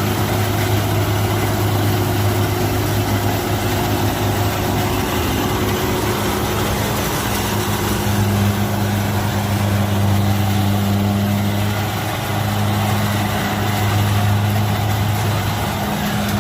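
Kubota DC70 combine harvester's diesel engine running steadily during rice harvesting: a loud, even drone with a low hum, dipping slightly about twelve seconds in.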